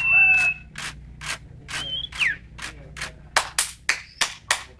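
Caged sirpu songbird whistling: a steady high note at the start, then a short note about two seconds in that bends sharply downward. Under the whistles runs a series of sharp clicks that quickens to about four a second near the end.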